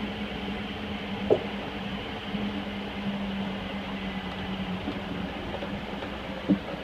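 1985 Toyota pickup's 22R four-cylinder engine running steadily as the truck drives, with two sharp knocks, one about a second in and one near the end.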